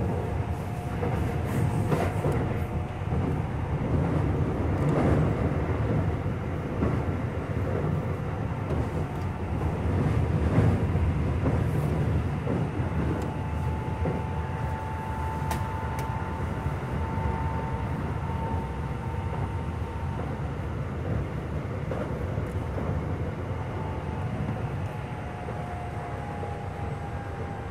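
A Keio 5000 series electric commuter train running, heard from inside a passenger car: a steady rumble of wheels on rail with scattered clicks. A faint high whine comes in about halfway. Throughout the run there is a slight knock from a flat spot on a wheel.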